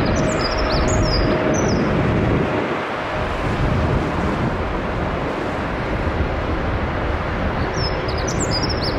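Jet airliner engine noise, a steady broad rumble, with a faint steady tone that fades out after about two seconds. Small birds chirp briefly at the start and again near the end.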